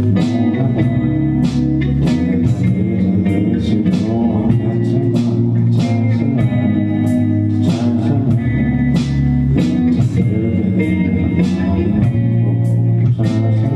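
Band music played live: guitar and bass guitar over a steady drum beat.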